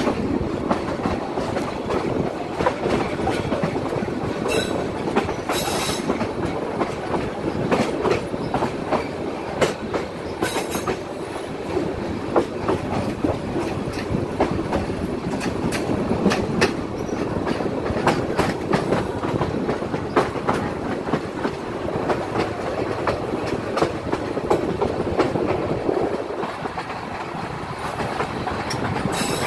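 Intercity passenger train running at speed, heard from aboard alongside its coaches: a steady rumble of wheels on rail with a rapid run of clacks over rail joints and points. A few brief high-pitched bursts come through at times.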